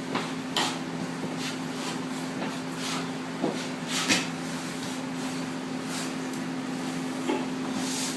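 Drywall knife spreading joint compound over taped sheetrock seams: short, irregular scraping strokes about once a second, over a steady hum.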